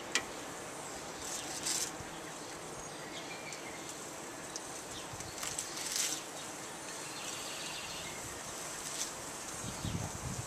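Italian sausages sizzling steadily on a hot charcoal grill grate as their casings sear, with a few light clicks of metal tongs on the grate as more links are laid down.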